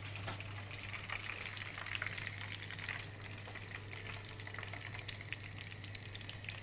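Batter-coated chicken strips deep-frying in hot oil in a wok: a steady sizzle full of fine crackles, over a low steady hum.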